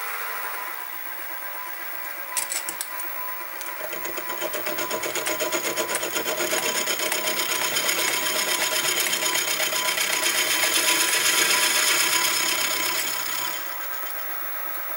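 Sieg SX2P mini mill's spindle motor running with a steady whine; from about four seconds in, the milling cutter bites into the cast soleplate as the table is fed by hand, a rhythmic cutting chatter that stops shortly before the end as the cut runs out.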